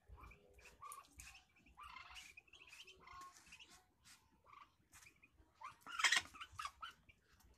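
Ducklings peeping: many short, faint high chirps, with a louder flurry about six seconds in.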